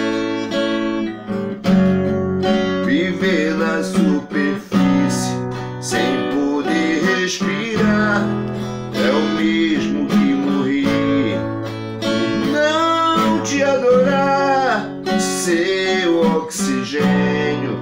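Acoustic guitar strummed in a steady chordal accompaniment. A man's voice sings the melody over it in long, gliding phrases.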